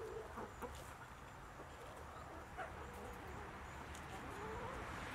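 A flock of backyard chickens clucking softly, with short calls scattered through.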